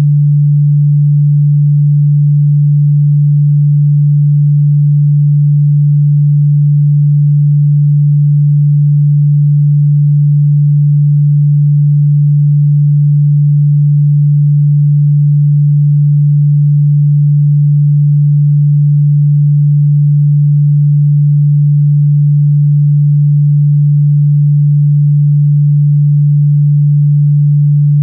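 A single steady low pure tone, held unchanged and with no other sound, played as a chakra-activation meditation frequency.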